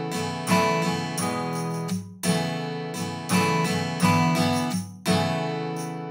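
Background music: strummed acoustic guitar chords, each strum sharp and then fading, a new one coming about every half to three-quarters of a second.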